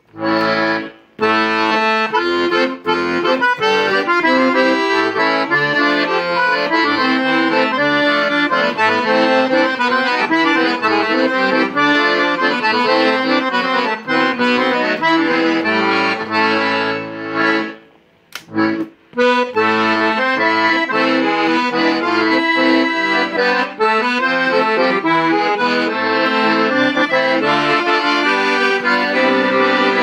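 Hohner Atlantic IV N de Luxe piano accordion played: a melody on the treble keyboard over a bass-button accompaniment, with a brief break in the playing about a second in and another, of about a second and a half, a little past the middle.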